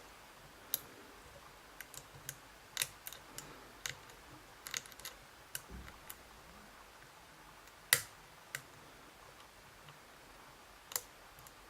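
Scattered light clicks and taps of a pick working the sliders inside a Vachette V DIS Plus dimple lock, with a sharper click about eight seconds in.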